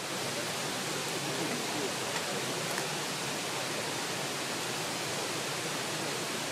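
Steady, even rushing noise with no distinct events, like the sound of flowing water or wind in the open.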